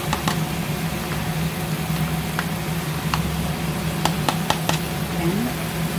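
Wooden spatula clicking and scraping against a wok as dollops of yogurt go in over the chicken and vegetables, a few sharp knocks clustered about four seconds in. Under it a steady low mechanical hum runs throughout.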